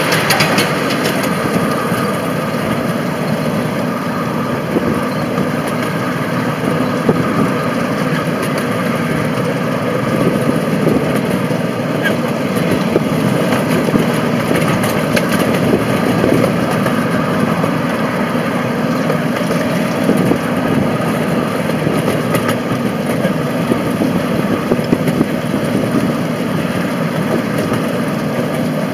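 A 7.25-inch gauge diesel miniature locomotive running steadily as it hauls the train, heard from a riding car, with wheels clicking over the rail joints now and then.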